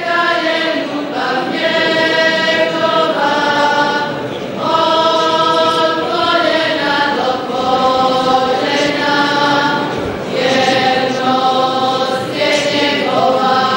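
Church choir singing a hymn in long held notes, phrase after phrase with short breaths between them.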